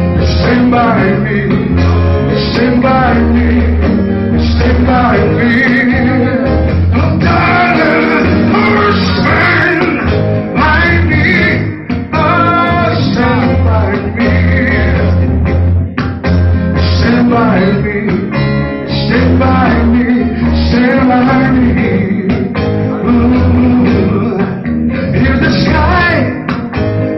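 Live blues band playing: a man sings into a microphone over electric guitars and a steady, pulsing bass line.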